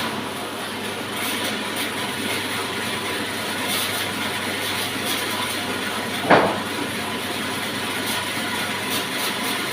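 Horizontal sawmill machinery running steadily, with one short squeal about six seconds in that slides quickly down in pitch.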